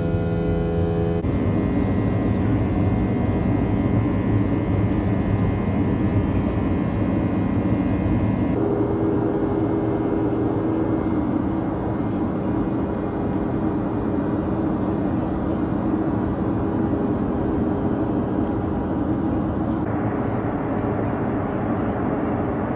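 Cabin noise inside a Boeing 737-800 jet airliner: a steady rush of engine and airflow with a faint whine on top. Its tone changes abruptly three times, about a second in, about nine seconds in and near the end.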